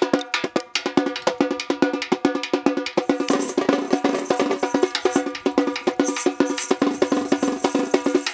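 Samba percussion: a metal-shelled repinique drum struck with a stick and the bare hand in a fast, steady rhythm. From about three seconds in, a chocalho shaker adds a jingling hiss over the drum strokes.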